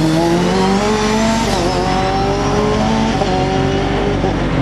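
Racing car engine accelerating hard: the pitch climbs, drops once at a gear change about one and a half seconds in, then climbs again through the next gear.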